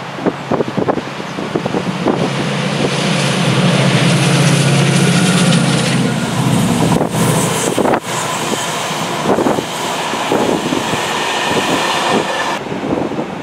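Chiltern Railways Class 68 diesel-hauled passenger train passing at speed. The locomotive's engine hum is strongest in the first half, then gives way to a steady rush of wheels on the rails as the coaches go by. Wind buffets the microphone throughout.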